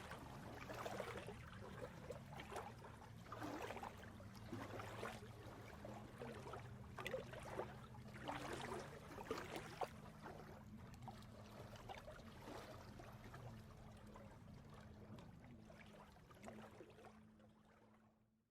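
Faint running water, trickling and gurgling, over a low steady hum; it fades out near the end.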